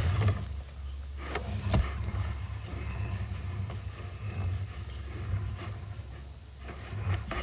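Sewer inspection camera being pushed through the cleanout into the drain line: a steady low rumble with a couple of sharp knocks about a second and a half in.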